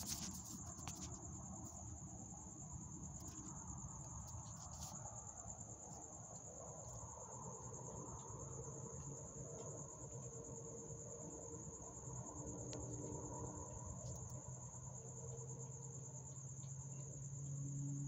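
Crickets trilling steadily in one continuous high-pitched note. A low hum comes in during the second half, with a few faint clicks in the first second.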